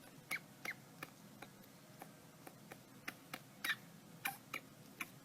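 A dozen or so short, sharp clicks, faint and irregularly spaced, some coming in quick pairs.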